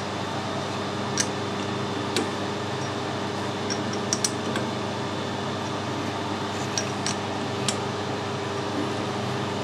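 Steady mechanical hum of workshop equipment, with a handful of sharp light metallic clicks and taps as a four-jaw lathe chuck is turned by hand and its jaws are adjusted against a dial indicator.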